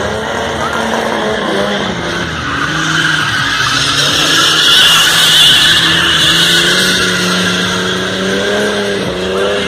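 Stunt car's engine held at high revs, a steady pitch, while its tyres skid and squeal as it spins around cones; the tyre noise swells and is loudest around the middle.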